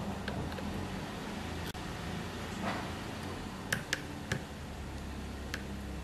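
A few short, sharp clicks, three close together about four seconds in, as a precision screwdriver works the tiny screws out of a phone's midframe, over a steady low hum.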